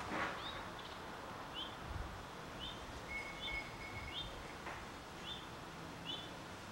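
A small bird chirping, short high chirps repeated roughly once a second, over faint outdoor background hiss.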